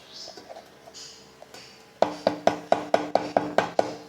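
Gas stove burner's electric spark igniter clicking rapidly, about nine even clicks in under two seconds, starting about halfway in; the burner is not lighting.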